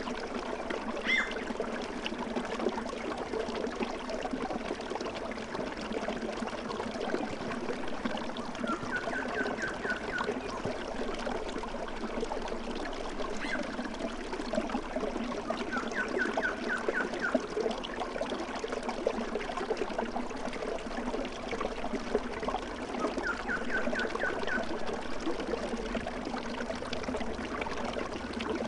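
Steady flowing and trickling water of a small stream, with a bird's short trill of four or five quick chirps coming back about every seven seconds.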